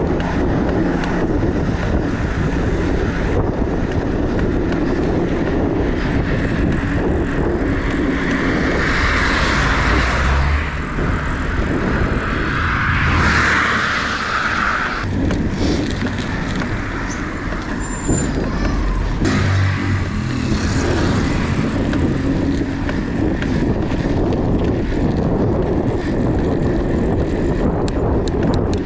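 Wind buffeting the camera's microphone as a bicycle rides along a road shoulder, with car traffic going by; the rush of passing cars rises and falls twice around the middle.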